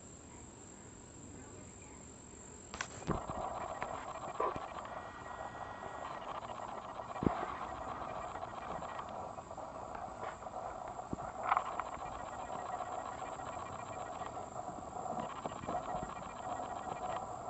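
A steady, high-pitched insect trill. From about three seconds in, a louder steady rushing noise joins it, with a few faint taps.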